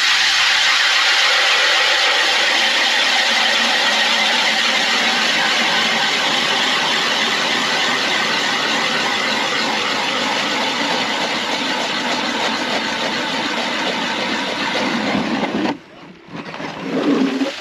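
Power ice auger running steadily as it bores down through lake ice, stopping suddenly about two seconds before the end.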